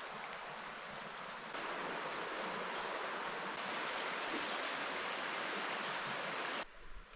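Steady rushing of a stream's running water, louder from about a second and a half in, cutting off abruptly near the end to a quieter background.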